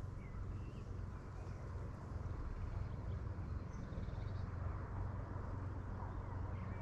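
A steady low rumble with a few faint, short bird chirps scattered over it.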